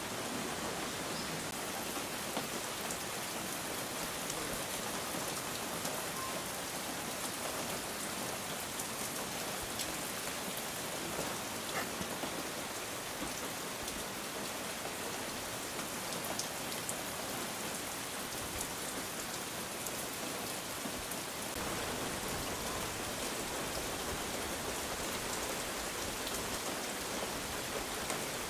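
Steady rain falling, with individual drops ticking now and then.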